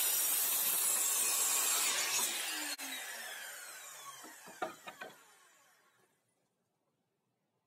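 Sliding compound mitre saw cutting through an old pallet board, then the blade spinning down with a falling whine after the cut ends abruptly. A few knocks of wood come as the cut board is moved.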